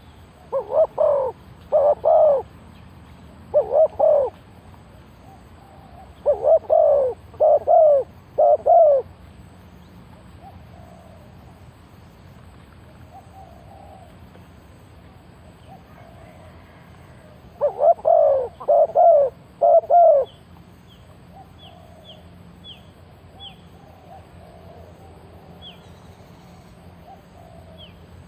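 Spotted dove cooing: four bouts of two- or three-note coos separated by long pauses. Faint, short, high chirps from a small bird come in the second half.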